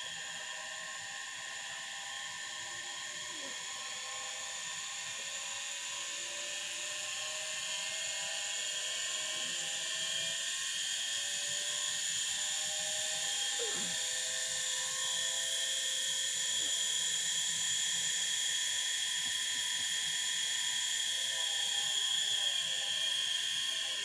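Samsung washing-machine universal motor running on a low-voltage bench DC supply, its whirring whine slowly rising in pitch and getting louder as the supply voltage is turned up from 12 V to about 24 V.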